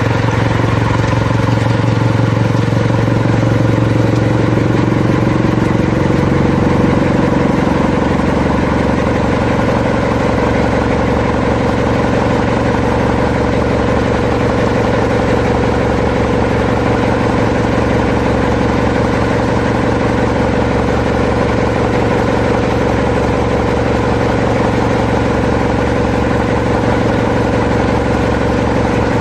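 Diesel engine of a railway rotary snowplow running steadily. A deep rumble eases about six seconds in, leaving an even hum.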